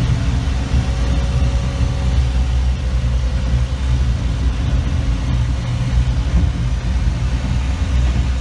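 Tractor engine running steadily with a deep, even drone, as the tractor works along the road with its small scraper bucket.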